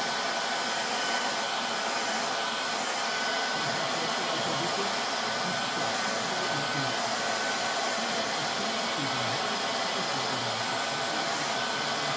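Handheld hair dryer blowing steadily, drying a fresh coat of airbrushed paint on a model locomotive shell, with a faint high steady whine running through the rush of air.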